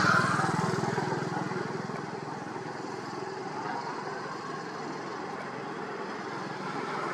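A motor vehicle engine passing close by, loudest at the start and fading away, with another vehicle approaching near the end.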